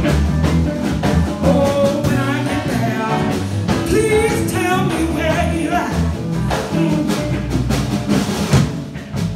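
A singer performing a song live with a band, the voice over drums and bass.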